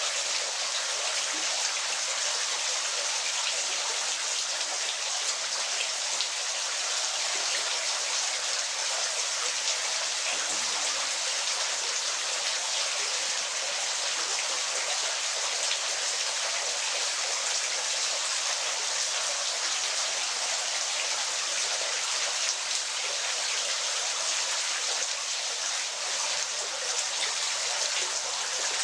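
Waterfall: a steady rush of falling, splashing water with fine spattering, even in level throughout and with almost no low rumble.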